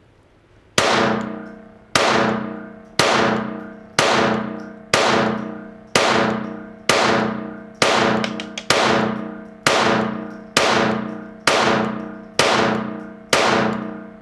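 Kel-Tec P17 .22 LR pistol firing about fifteen shots at a steady pace of roughly one a second, emptying its 15-round magazine. Each shot is a sharp crack followed by about a second of ringing reverberation off the indoor range's concrete-block walls.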